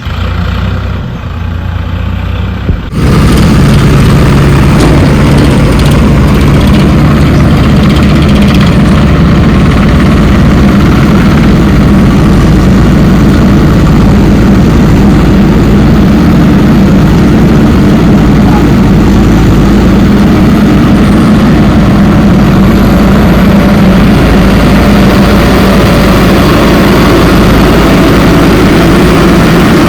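Heavy diesel engine of earthmoving machinery running loudly and steadily. It cuts in abruptly about three seconds in, after a quieter stretch of engine sound.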